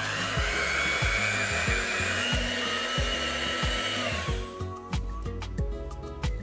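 Electric stand mixer running, its dough hook kneading butter into a soft bun dough: a steady whirring whine that stops about four seconds in. Background music with a steady beat plays throughout.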